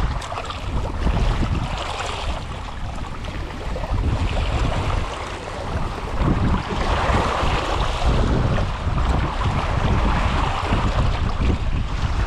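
Sea waves washing and splashing against shoreline rocks, with wind buffeting the microphone. The wash swells up more strongly in the second half.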